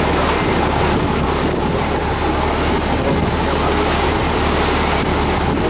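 A ship's engine running steadily with a constant low hum, under the noise of choppy sea water churning against the hull and pier, with wind on the microphone.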